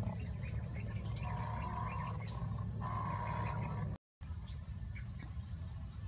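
Outdoor ambience with a steady low rumble and a faint high insect-like whine, and two steady, mid-pitched animal calls of about a second each, a little after one second and about three seconds in. The sound cuts out completely for a moment just after four seconds.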